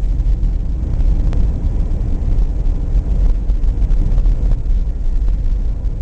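Steady low rumble of a vehicle driving along a snow-covered highway, heard from inside the cabin: engine and tyre noise without let-up.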